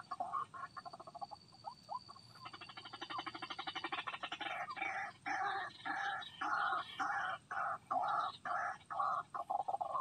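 White-breasted waterhen calls: a fast rattling trill about two and a half seconds in, then repeated harsh 'kruak' notes, about two a second.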